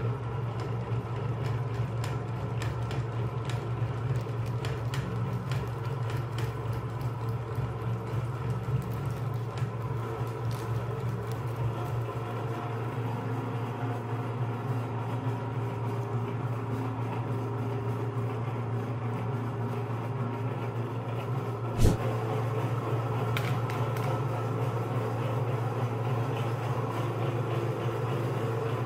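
Electric meat grinder's motor running with a steady low hum while it grinds frozen ice cream bars, with scattered light clicks as the bars feed through. A single sharp knock comes about three-quarters of the way through.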